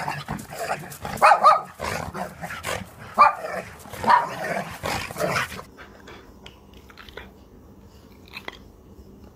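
Dog barking, a run of loud barks through the first five and a half seconds, then a much quieter stretch with only a few faint clicks.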